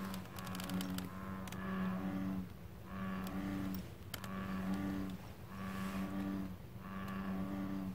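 American bullfrog calling: a deep, moo-like note repeated about once a second, each note holding one pitch for most of a second, seven times over.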